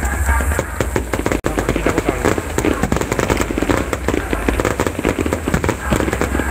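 Aerial fireworks barrage: shells bursting in rapid, overlapping succession, a dense run of bangs and crackle with no pause.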